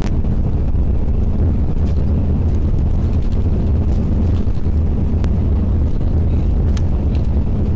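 Steady low rumble of a moving vehicle heard from inside the cabin: road and engine noise while driving, with a few faint clicks.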